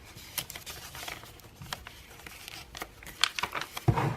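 Paper pages, tags and cards of a handmade junk journal being handled and turned, with scattered crinkling rustles and small clicks, and a louder thump near the end.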